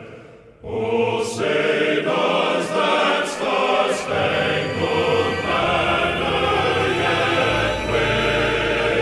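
Background music, starting within the first second after a brief quieter lead-in, with a few sharp percussive hits early on and a deep bass line coming in around the middle.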